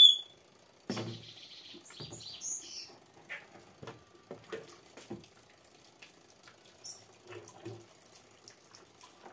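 Homemade liquid soap splashing as a plastic jug scoops it from a washing machine tub and pours it into a plastic bottle, with light knocks of plastic. A bird chirps once at the very start.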